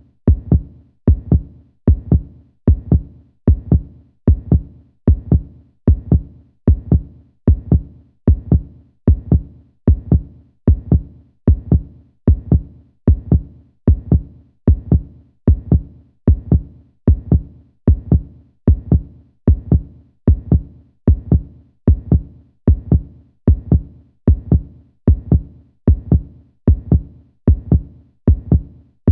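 Heartbeat sound effect: low double thumps, a strong stroke followed closely by a weaker one, repeating steadily at about one beat a second.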